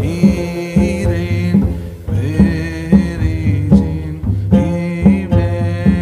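Background music with a steady beat under a wavering melodic line.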